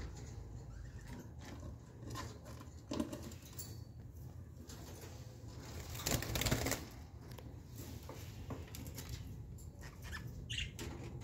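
Budgerigars moving about in a wire cage, with a short flurry of wing-flapping about six seconds in and scattered small clicks and taps.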